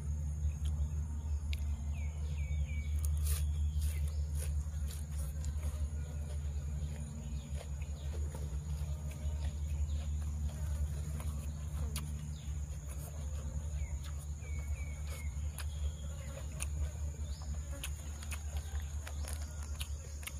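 Chewing and small clicks of food being handled and dipped in a sauce bowl, over a steady low rumble and a continuous high-pitched insect drone.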